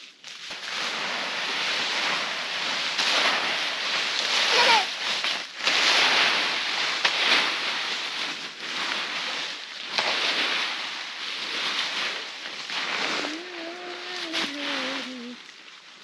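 Dry leaf litter rustling and crackling in repeated swells as it is raked together and gathered up for buffalo bedding. A short, slowly falling call comes near the end.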